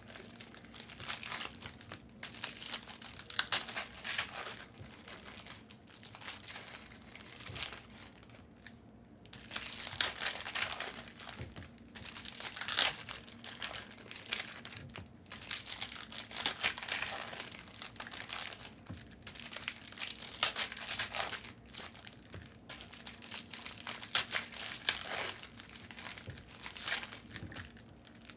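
Foil trading-card pack wrappers being torn open and crinkled by hand, in irregular bursts of crackling with short pauses between packs.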